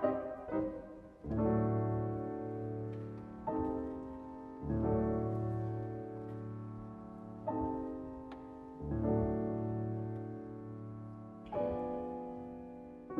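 Concert grand pianos playing slow, widely spaced chords. Each chord is struck and left to ring and fade before the next, after a few quick notes right at the start.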